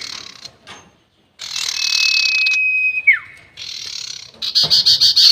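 A sirtu bird's long drawn-out whistle: one steady high note held for over a second that ends in a quick downward slur, between bursts of hiss. Near the end a rapid rattling chatter starts.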